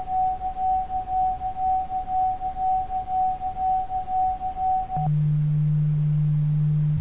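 Electronic pure tones. A single mid-pitched tone pulses in loudness about three times a second, then cuts off abruptly about five seconds in and gives way to a low, steady tone.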